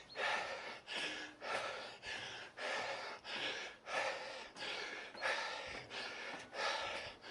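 A person panting hard and rhythmically, a loud breath in or out about every half second, out of breath from climbing a long, steep staircase.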